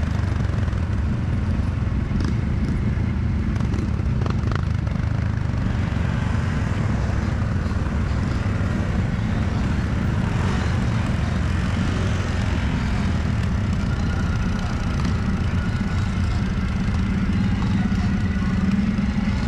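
ATV engine running steadily at cruising speed, heard from the rider's seat, with the drone of other quads riding nearby.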